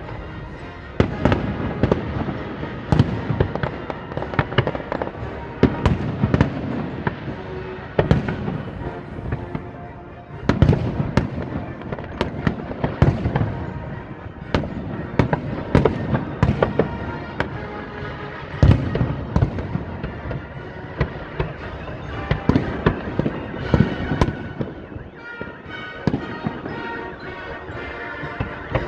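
Fireworks display: a rapid, uneven series of shell bursts and bangs, loudest in clusters, with music playing underneath.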